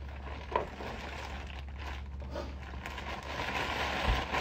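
Steady low room hum with a few faint rustles and clicks.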